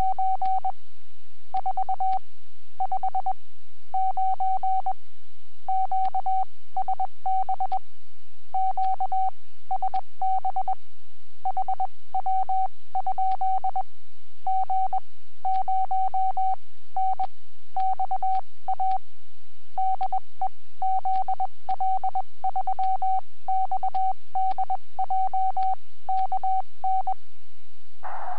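Morse code (CW) from a shortwave transceiver on the 30-metre band: a pure tone of about 750 Hz keyed on and off in dots and dashes at a steady sending speed. Near the end the keying stops and the receiver's band noise hisses up through the CW filter.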